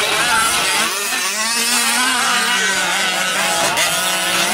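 Small two-stroke gas engines of several 1/5-scale RC trucks revving up and down together, their pitch rising and falling with the throttle.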